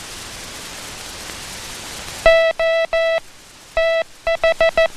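A Morse code tone keyed by hand, sending dah-dah-dah, a pause, dah, then four quick dits: the letters O, T and H. The spacing reads as 'O space T H', with T run close against H. Steady film-soundtrack hiss comes before the first tone.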